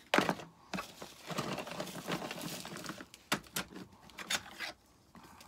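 Craft tools and small things being handled on a table: several sharp clicks and knocks, with rustling between them, as a pair of snips is fetched.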